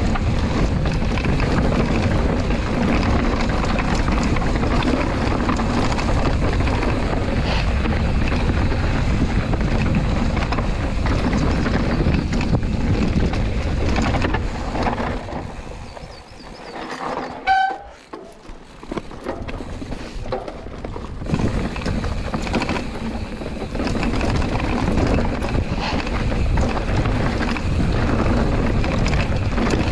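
Mountain bike running down a rough dirt and rock trail: tyre rumble and rattling of the bike, with wind buffeting the action camera's microphone. Past the middle the noise drops away for a few seconds and a short squeak is heard, then the riding noise picks up again.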